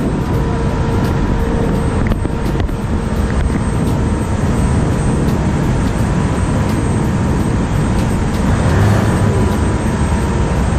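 Car ferry under way, heard from its open deck: a steady, loud rumble of the engine mixed with rushing water and wind, with a faint steady hum over it.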